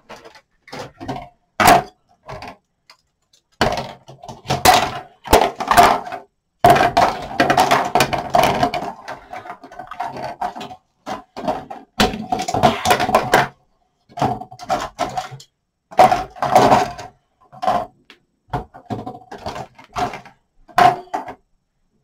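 Plastic parts frames (sprues) of a robot arm kit being handled and set down on a table, clattering and tapping in bursts with short pauses, with denser rattling as the sheets are shuffled around.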